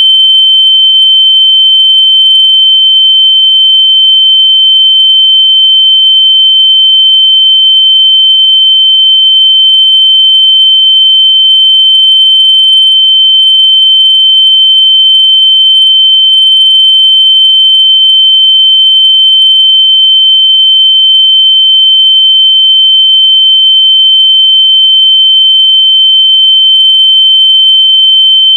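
Continuous loud, high-pitched electronic sine tone held at one steady pitch, with no break or change. It is a locator noise played to make lost AirPods audible so they can be found.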